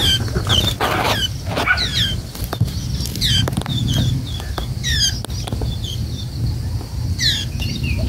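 White-eye fledglings calling with short, high, falling chirps repeated throughout, some given in quick pairs. Wings flutter and rustle at the nest in the first couple of seconds, over a low steady rumble.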